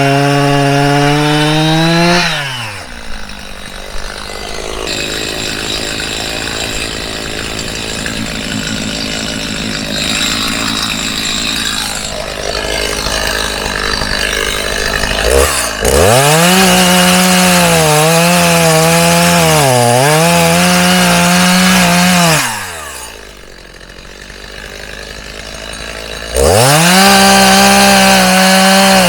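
Two-stroke chainsaw running at full throttle, dropping about two seconds in to a quieter, rougher run for some thirteen seconds, then revving up again. It eases off a little past twenty-two seconds and revs back up to full throttle near the end.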